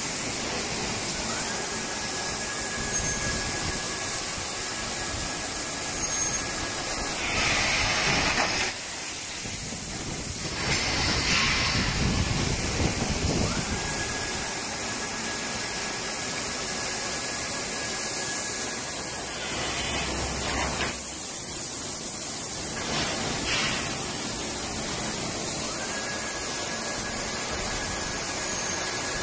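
Thermoforming machine running through its forming cycle: a steady hiss of air, with several louder air blasts, and a thin high whine that comes on for a few seconds about every twelve seconds.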